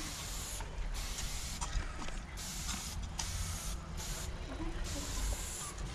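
Aerosol spray paint can hissing in a run of short bursts, each under a second, with brief gaps between them, over a steady low rumble.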